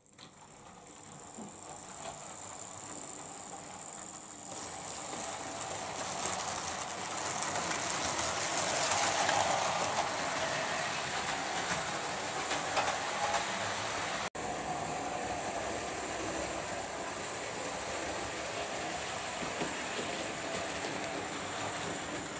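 Model train running on the layout's track: a steady electric motor whine with wheels clicking over the rail joints. It builds from the start and is loudest about nine seconds in, with a momentary break a few seconds later.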